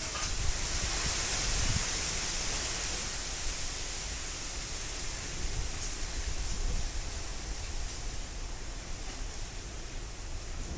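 Heavy rain pouring with strong, gusting wind: a steady hiss over an uneven low rumble that eases a little in the second half.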